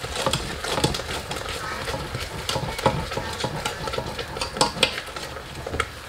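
Wooden spoon stirring sugar into thick carrot halwa in a stainless steel saucepan, with irregular scrapes and clicks of the spoon against the pot, several a second.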